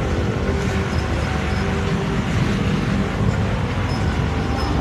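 Open-sided tourist ride vehicle in motion: a steady rumble and rush of travel noise with no let-up.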